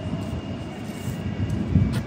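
Train running through the station: a low rumble with a faint steady high whine, and a sharp click near the end.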